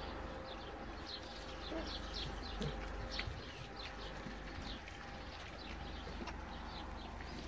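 Small birds chirping: a quick, irregular series of short, high chirps that slide down in pitch, over a low steady rumble.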